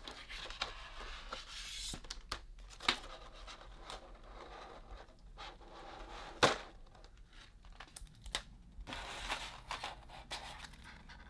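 Clear plastic blister trays crinkling and clicking as an action figure and its parts are handled and lifted out, with a few sharp clicks; the loudest comes a little past the middle.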